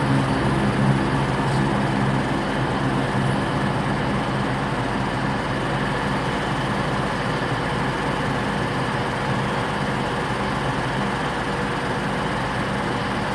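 Class 170 Turbostar diesel multiple unit pulling out, its engine note strong at first and fading over the first few seconds into a steady, even rumble.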